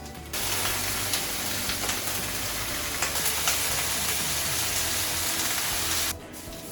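Starch-coated pork slices sizzling in hot oil in a frying pan over high heat. A dense, loud crackling hiss starts abruptly just under half a second in and cuts off suddenly about six seconds in.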